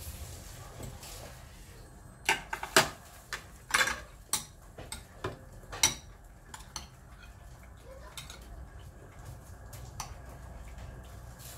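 Metal fork and spoon clinking against a small glass bowl while eating noodle soup: a quick run of sharp clinks in the middle, then a few scattered ones.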